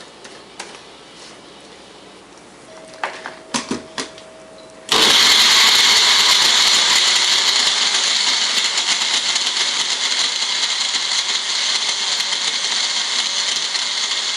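A few clicks and knocks, then about five seconds in a countertop blender switches on abruptly and runs loud and steady, blending a shake of almond milk and frozen fruit pieces.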